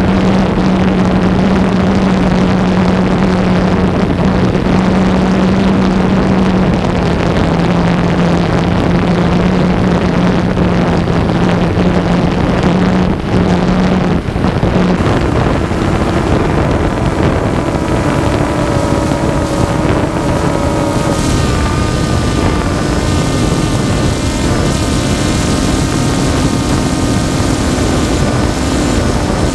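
Camera drone's electric motors and propellers whirring, a steady hum that moves to a higher pitch about halfway through.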